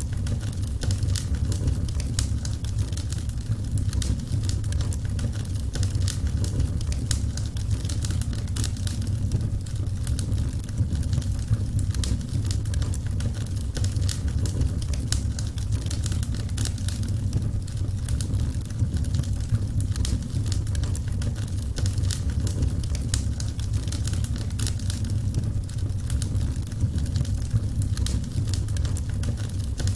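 Wood fire crackling: many small, irregular pops and snaps over a steady low rumble.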